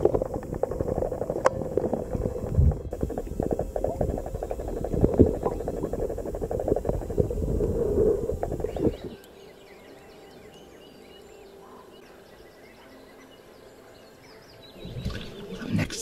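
Water churning and sloshing as legs kick through the loch beneath a floating photography hide, heard underwater, with irregular knocks; it drops suddenly to a faint hush about nine seconds in.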